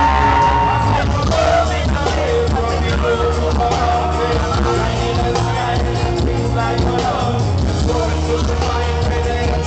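A male singer performing live with a band, recorded from among the audience in a hall. A long held note ends about a second in, then the voice goes on in melodic phrases over a steady bass.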